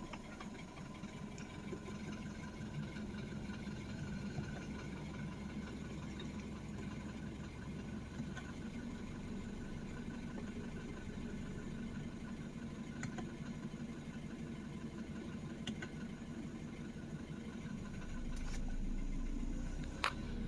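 BMW N20 2.0-litre turbocharged four-cylinder engine idling steadily on fresh oil, run briefly after an oil change before the level is checked. A single sharp click near the end.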